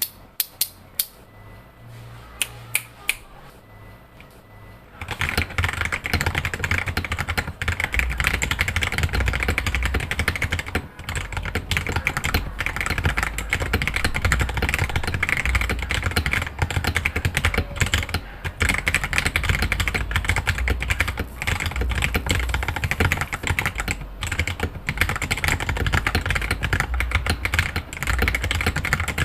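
Gasket-mounted Lychee G66 mechanical keyboard with Akko Jelly Black linear switches, a polycarbonate plate, blank PBT keycaps and foam mods being typed on. A few separate keystrokes come first, then fast continuous typing starts about five seconds in.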